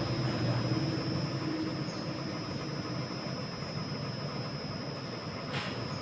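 JETSpin CR-5500 carpet spinner running: a steady mechanical rumble and whoosh from the spinning drum. Its motor hum fades over the first two seconds and the sound slowly gets quieter, with one short tick near the end.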